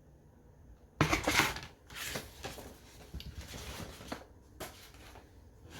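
Paper rustling and handling noise from hardcover books and their paper dust jackets being moved and turned, starting suddenly and loudest about a second in, then continuing with scattered light taps and clicks.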